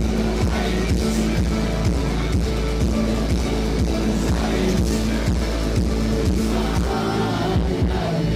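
Live electronic pop music played loud through a concert PA, with a steady beat of about two kick-drum hits a second under sustained bass and synth chords. The deepest bass drops out about seven seconds in.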